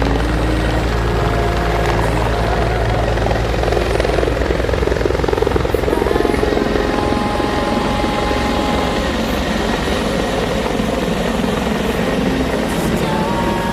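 Helicopter running loud and steady as it departs, a rapid rotor beat coming through in the low sound.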